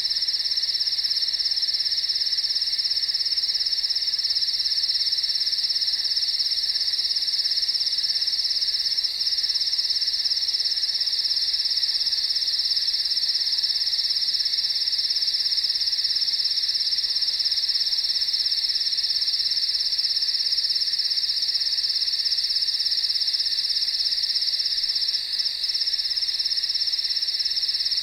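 Crickets chirping in a dense, continuous chorus: a steady high-pitched trill that holds without a break.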